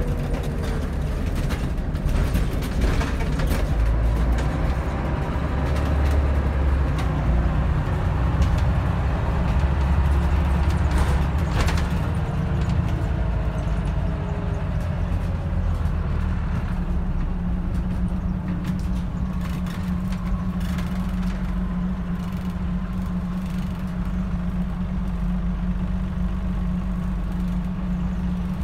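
Scania N94UD double-decker bus's diesel engine and drivetrain running as the bus drives, heard from inside the upper deck. The pitch rises and falls over the first half, then settles to a steady drone.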